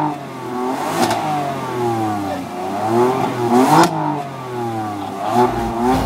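BMW M4 Coupé's twin-turbo inline-six, parked and revved through its quad exhaust: the pitch climbs and falls twice, peaking about a second in and again near four seconds.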